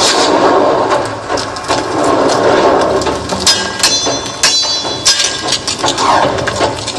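Sound effects from a projection-mapping show's soundtrack over outdoor loudspeakers. A dense rumble runs for the first few seconds, then gives way to a run of sharp cracks and knocks, with a brief high chiming tone about halfway through.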